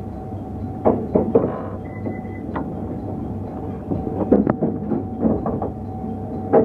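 JR Hokkaido 711 series electric train running, heard from inside the front cab: a steady running rumble and hum, broken by irregular clusters of sharp clacks as the wheels cross points and rail joints.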